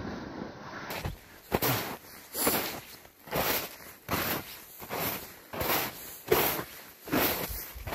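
Footsteps crunching through snow at a steady walking pace, a little more than one step a second, beginning about a second in.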